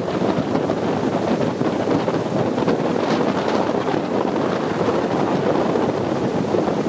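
Long-tail boat under way: its engine runs steadily, mixed with wind buffeting the microphone.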